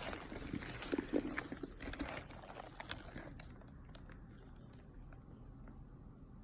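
Leather handbag being handled and turned: soft rustling with scattered light clicks for the first three seconds or so, then fainter.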